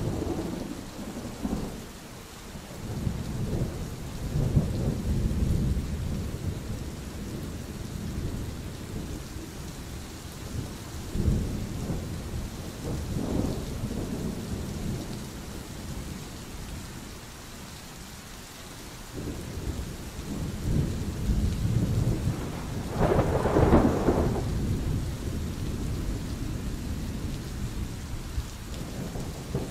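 Steady rain in a thunderstorm, with several rolls of thunder rumbling up and fading away; the loudest and sharpest peal comes about three quarters of the way through.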